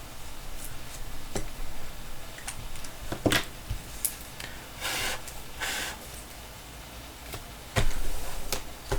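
Trading cards and card packaging being handled on a table: scattered sharp clicks and taps, with two short rustles about five seconds in.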